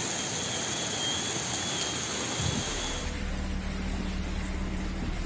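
Steady rush of floodwater and rain in a flooded street. About three seconds in it changes to a lower rumble with a steady hum, heard inside a bus whose floor is awash with floodwater.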